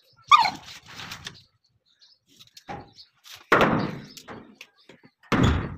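A dog scuffling after a mouse behind a metal drum against a brick wall: a short wavering squeal just after the start, then two heavy bumps, about two seconds apart.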